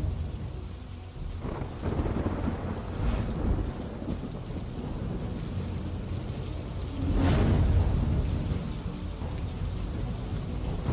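Thunderstorm: steady heavy rain with rolls of thunder, one starting about a second and a half in and a louder crack and rumble about seven seconds in.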